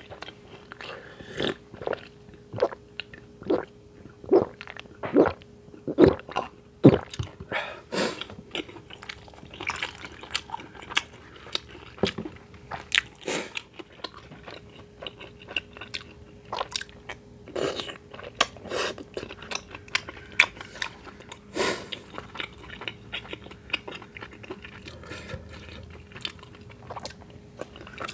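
Close-up chewing and wet mouth sounds of a person eating tteokbokki rice cakes and fried snacks, picked up by a clip-on microphone. The bites and smacks come about once a second for the first several seconds, then more irregularly.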